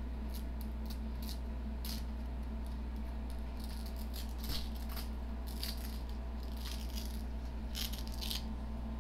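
Steady low hum with scattered light, irregular rattling clicks, which come more often in the second half.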